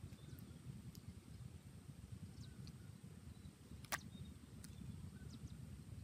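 Faint outdoor ambience: a steady low rumble with a few sharp clicks, the loudest just before four seconds in, and faint short high chirps.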